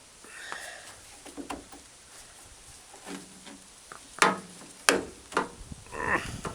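Three sharp knocks about half a second apart, roughly four to five and a half seconds in, with rustling and scraping before and after. These are hammer taps driving the small retaining pegs of a window channel's felt strip up into their holes inside a truck door.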